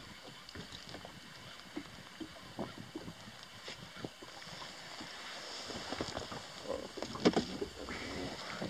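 Spinning reel being wound while a hooked pike is played up to the side of an inflatable boat. Scattered ticks and knocks sound over wind and water noise, with a louder cluster of knocks about seven seconds in.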